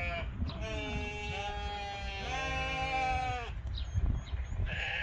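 Lamb bleating: long, steady-pitched calls, the loudest from about two seconds in to about three and a half seconds, over a low rumble.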